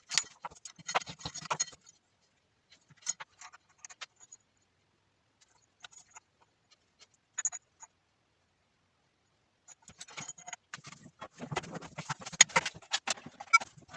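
Scattered clicks, taps and scrapes of small hard objects being handled. A quiet stretch comes in the middle, then a denser run of clicks near the end.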